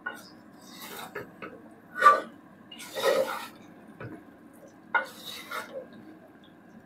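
Wooden spoon stirring a large aluminium pot of thick, sticky dried-jujube (boroi) pickle: several irregular stirring strokes, the loudest about two seconds in.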